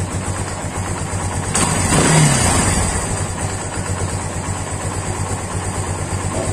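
Kawasaki Barako 175's single-cylinder four-stroke engine idling with its valve clearances freshly set, with one brief rev about two seconds in that falls back to idle.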